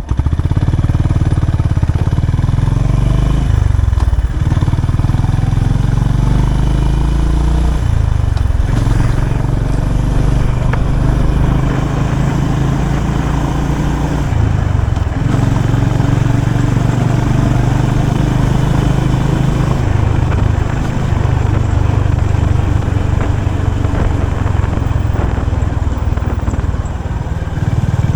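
Honda CB350RS's air-cooled single-cylinder engine running through its stock exhaust, revved up and down several times between spells of steady running.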